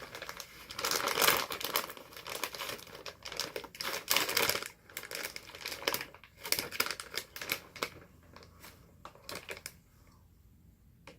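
Crinkly plastic snack packaging being handled and pulled open, a dense crackling that thins to a few scattered crinkles after about eight seconds.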